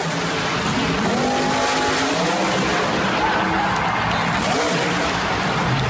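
Monster truck engine running at high revs, its pitch rising and falling several times over a loud, even rush of noise.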